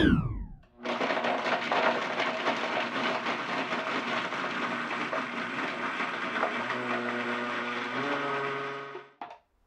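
A quick falling whoosh at the very start, then a Vitamix A3500 blender running with its 48-ounce dry container, grinding graham crackers into crumbs. Its motor tone shifts lower about seven seconds in, and it stops about nine seconds in.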